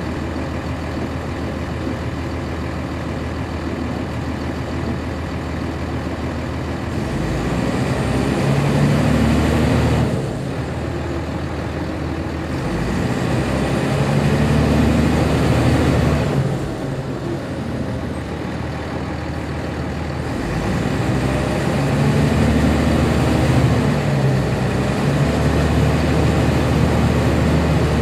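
1999 NovaBus RTS transit bus with a Cummins ISC diesel, heard from inside the cabin: the engine runs steadily, then pulls away under load three times, easing off after the first two, with a faint whine rising in pitch during each pull.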